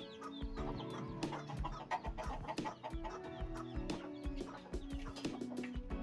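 Hens clucking and chicks peeping over background music with a steady beat.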